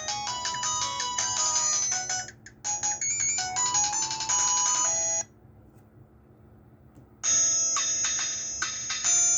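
Huawei ETS688 phone playing an electronic ringtone melody of quick, bright notes through its speaker. It stops about five seconds in, and after a two-second pause another ringtone melody starts.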